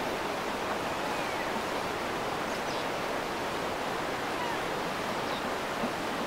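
A steady, even rushing noise, with a few faint, short high calls that slide in pitch.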